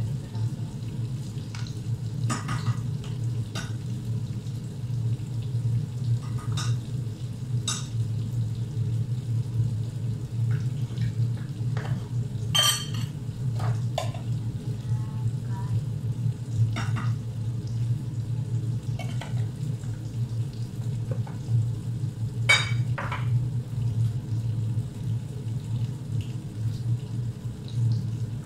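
A metal spoon clinking against spice jars and a pot as spices are spooned into tomato sauce: a handful of sharp, scattered clinks and light scrapes over a steady low hum.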